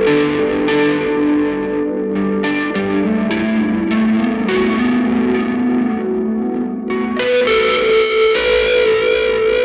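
Fender offset-body electric guitar played through a chorus, a distortion and a long-decay reverb: slow, sustained distorted chords that wash into one another, changing a few times.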